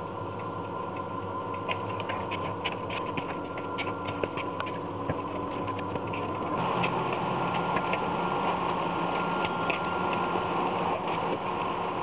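Hands kneading bread dough in a plastic bowl, with scattered light clicks and rubbing, over a steady mechanical hum that grows louder and noisier about six and a half seconds in.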